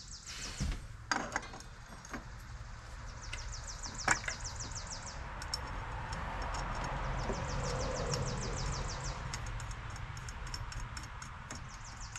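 Light metal clicks and handling noise from scooter CVT parts being fitted by hand on the clutch and pulley, with a rustle swelling in the middle. A high, rapid chirping trill comes in bursts of about two seconds every few seconds throughout.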